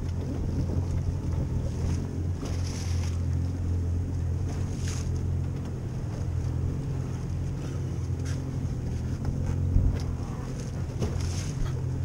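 Outboard motor of a small center-console boat idling, a steady low hum, with wind on the microphone and water slapping at the hull. There is a single knock near the end.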